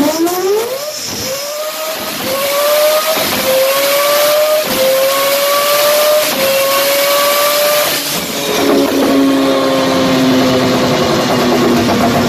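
Turbocharged four-rotor rotary engine at full throttle on a chassis dyno. It makes a high, pitched scream that climbs in a string of short steps, with a strong hiss over it. About eight seconds in the revs drop and the engine winds down on a lower, slowly falling note.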